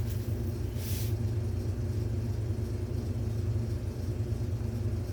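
A steady low hum with a few faint tones above it, and a brief rustle about a second in.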